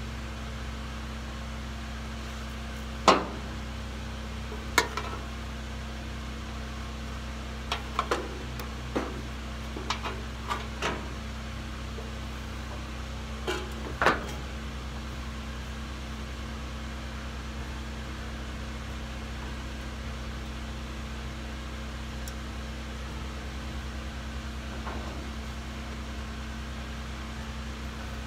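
Sharp metal clicks and knocks, about ten in the first half, as welding gear and steel parts are handled, over a steady low machine hum. No welding arc is heard.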